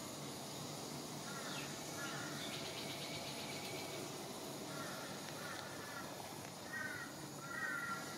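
Bird calls: several groups of short, quickly repeated calls over a steady background hiss.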